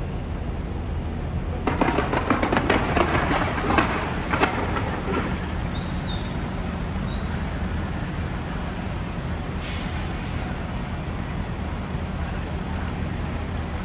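Fireworks crackling: a rapid string of sharp pops for about three and a half seconds, over a steady low rumble, followed by a short high hiss about ten seconds in.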